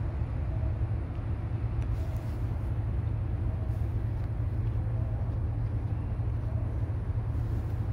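Steady low rumbling drone of the background noise under an elevated overpass, with a faint short higher tone recurring about every second and a half.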